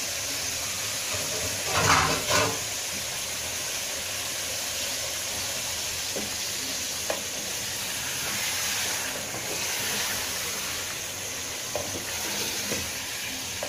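Chicken pieces sizzling steadily in hot oil in a metal pot while being stirred with a spatula, the sizzle already settling down from its first burst. Two loud clatters of the spatula in the pot come about two seconds in, with a few light knocks later.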